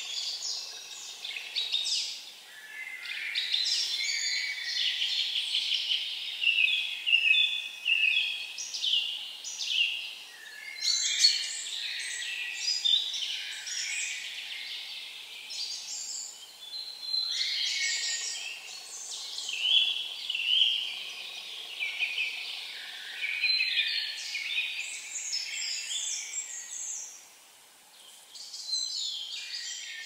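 Songbirds singing: high-pitched song phrases of a couple of seconds each, following one another with short gaps, with a brief lull near the end.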